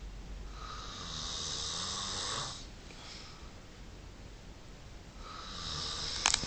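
Extra loud snoring: two long, hissing snores, the first from about half a second in to about two and a half seconds, the second starting about five seconds in. A short sharp click comes near the end.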